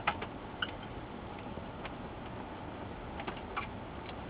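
A few scattered light metallic clicks and ticks as a screwdriver works small Phillips screws out of the end of an LCD monitor panel's frame, over a steady low background hiss.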